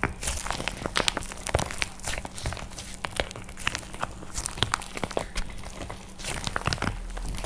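Dried painted plaster clay being crushed by hand, breaking up in a dense, irregular run of crisp cracks and crunches.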